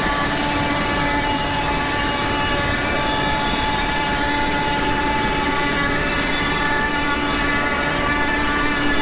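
Tractor running steadily under load while pulling a deep-tillage implement: a constant engine drone with a steady whine of several pitches over it.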